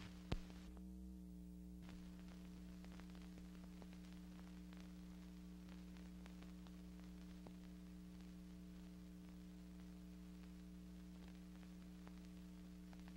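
Near silence: a faint, steady electrical hum with scattered faint crackles, the background noise of a silent stretch of archival film, with one sharper click just after the start.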